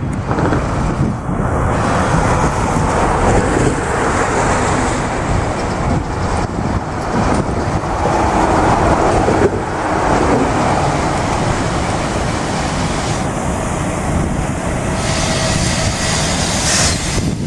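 Road traffic noise: a steady rumble of passing road vehicles with no clear rhythm.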